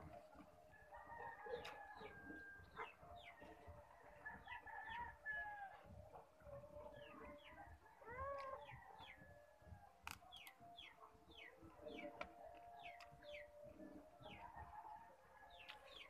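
Chickens calling faintly in the background: many short, high, falling cheeps, with a few longer drawn-out calls among them, one with a rise and fall about eight seconds in.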